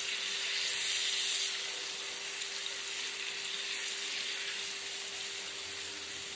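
Masala-coated fish steaks sizzling in shallow oil in a frying pan on a low flame: a steady hiss that swells briefly about a second in as the pieces are turned with a spoon. A faint steady hum runs under it.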